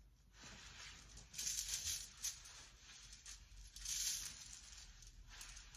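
Soft rustling of a puffer jacket's fabric as the wearer moves in it, hands in the pockets. There are two brief louder rustles, about a second and a half in and again around four seconds in.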